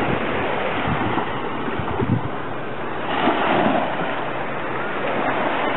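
Small waves breaking and washing up a sandy shore, with wind buffeting the microphone. The wash swells about three seconds in.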